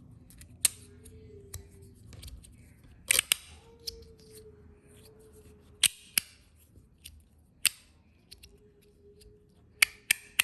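Copper Black Mirror Designs magnetic fidget slider being worked back and forth: sharp metallic clicks as the slide snaps to its ends, about seven, irregularly spaced. The slide doesn't slide very smoothly.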